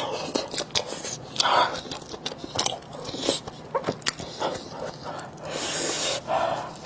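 Close-miked eating sounds: sticky, wet chewing and biting of a sauce-covered pork large-intestine sausage stuffed with pig brain, with scattered mouth clicks. A longer breathy hiss comes about five and a half seconds in, as the food is still very hot.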